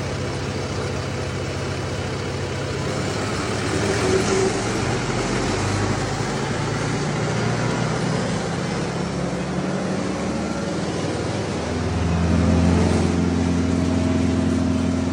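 12-inch wood chipper's engine running steadily, then picking up speed about twelve seconds in and holding at the higher, louder pitch.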